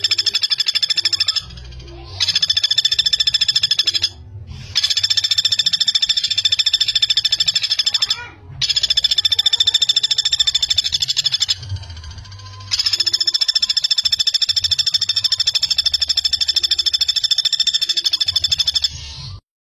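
Common flameback woodpecker (pelatuk bawang) calling in long, fast rattling trills of rapid, evenly spaced notes at a steady pitch. The calls come in five runs of a few seconds each, with short breaks between them, and stop abruptly near the end.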